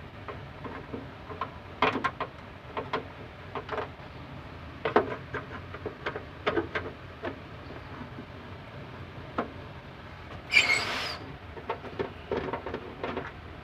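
Screwdriver clicking, knocking and scraping against the plastic back cover of a Sony CRT television as its screws are undone, with one louder, brief scrape about ten and a half seconds in.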